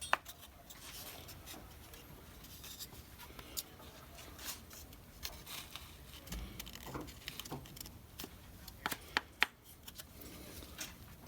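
Handling sounds of a wooden liner being fitted inside a Model T's metal transmission band: soft rubbing with scattered taps and clicks of wood and metal, one sharp click at the start and a quick cluster of sharp clicks near the end.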